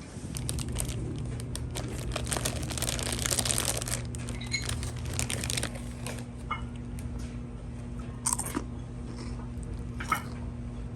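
Crinkling and crunching handling noises with scattered clicks, busiest about two to four seconds in, over a steady low hum.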